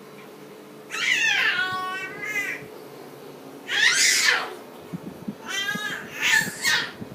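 Baby making three high-pitched squeals, each sliding in pitch, about a second in, halfway through and near the end.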